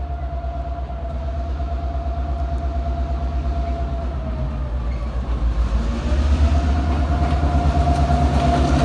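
An EMD GP38-2 diesel-electric locomotive approaching under power: its 16-cylinder two-stroke diesel engine pulses and grows louder, with a steady whine over it. About six seconds in the whine dips in pitch, then returns as the engine gets louder.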